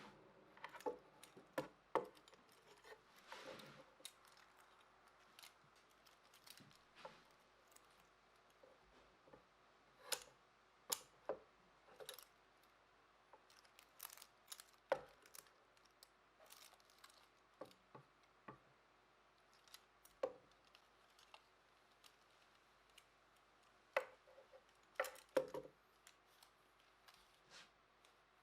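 Light, sharp clicks and taps at irregular intervals, with quiet stretches between them.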